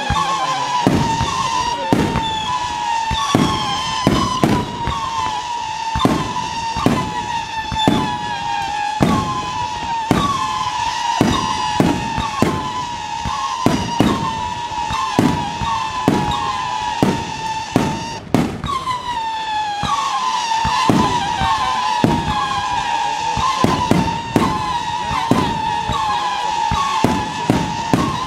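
Fireworks battery firing whistling shots in quick succession, about two a second. Each shot is a high whistle sliding slightly down in pitch and ending in a crack, and the whistles overlap into an almost unbroken tone. There is a short break about eighteen seconds in before the shots resume.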